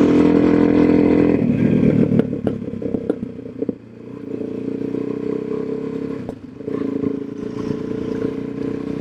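Suzuki DR-Z400SM's single-cylinder engine running just after starting, louder for the first second and a half and then settling to a steadier, lower note. A few clattering knocks come about two to four seconds in.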